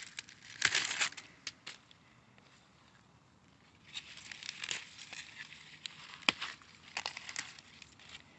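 Rustling and crackling of chard leaves and dry leaf litter being brushed and moved through, in irregular short bursts with a few sharp crackles, about a second in and again from about four to seven and a half seconds in.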